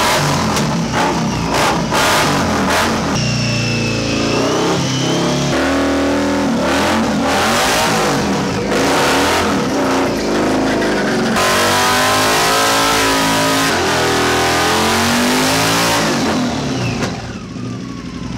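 Indian V-twin motorcycle engine revved hard again and again, its pitch rising and falling as the rear wheel spins on a stand. The sound jumps abruptly a few times.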